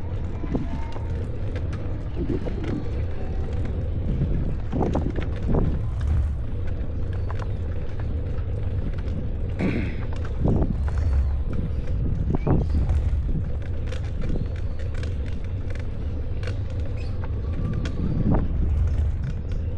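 A bicycle being ridden: scattered creaks, clicks and rattles from the bike over a steady low rumble.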